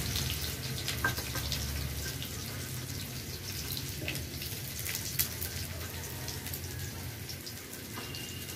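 Chopped onions sizzling in hot mustard oil in an iron karahi, with a few sharp pops, the sizzle slowly dying down as the oil cools around the onions.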